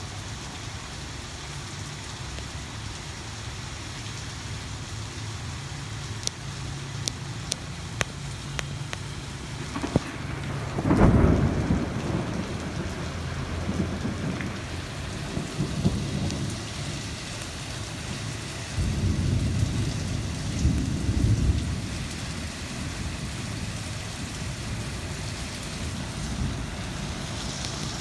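Steady rain hissing, with a few sharp drip ticks, and two rolls of thunder, the louder about a third of the way in and another about two-thirds in.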